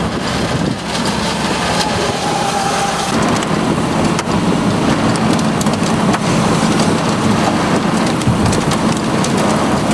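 Heavy rain and storm wind in a tornadic thunderstorm, a dense steady wash with fine crackling of drops, over a vehicle's engine running underneath.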